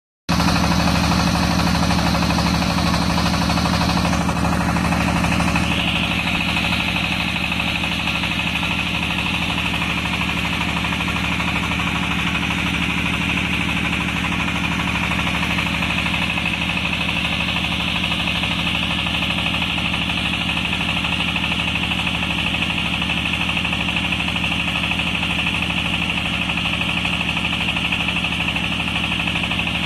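Small hydraulic water-well drilling rig running steadily under load while drilling: a constant engine drone, with a high hiss joining about five seconds in and holding.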